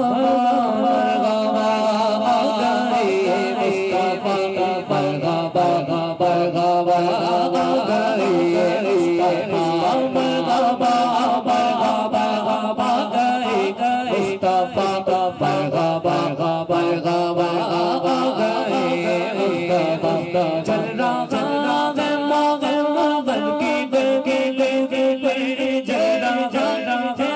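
A man singing a naat, an Urdu devotional song, into a microphone through a PA system, in long held, melismatic lines over a steady beat.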